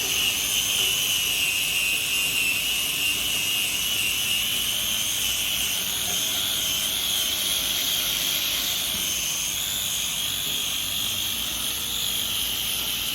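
A high-speed power tool's motor running under load with a steady high whine, its pitch wavering slightly.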